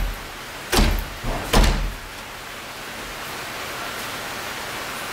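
A wooden panel door being shut and its knob and latch worked: four thuds within about two seconds, then a steady hiss.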